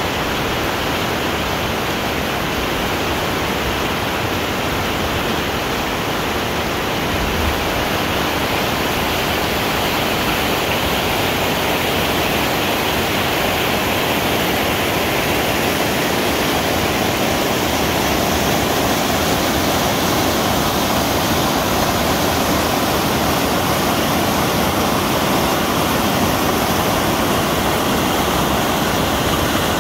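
Steady rushing of whitewater pouring over a river weir, loud and unbroken.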